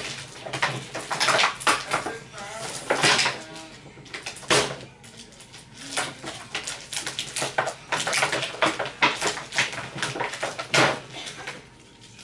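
Irregular clattering and clicking of small plastic containers and packets being handled while a small packet of glitter is worked open.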